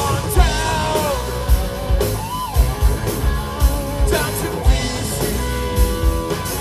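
Live hard rock band playing: distorted electric guitar, bass and drums with a sung vocal line that slides up and down in pitch, and a held note near the end.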